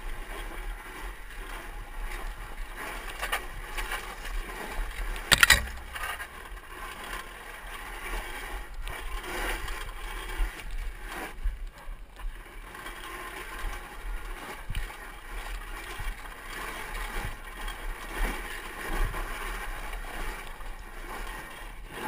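Camera-microphone sound of a 2012 Zero MX electric dirt bike being ridden over rocky dirt trail: a rough, steady rush of wind buffeting and rattling from the bike, with no engine note. One sharp knock about five and a half seconds in.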